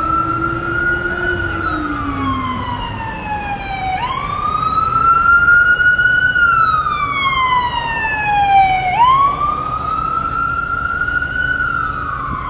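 Ambulance siren in slow wail: the pitch jumps up, climbs a little, then glides down, repeating about every five seconds. Steady street traffic noise runs underneath, and a second, lower siren fades out in the first couple of seconds.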